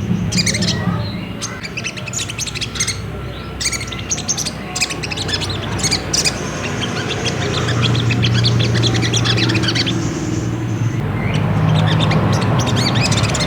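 Crimson sunbird (sogok ontong) calling in quick, excited high chirps and trills, a lure track of the kind used to make caged sunbirds sing. A steady low hum runs underneath and gets louder in the second half.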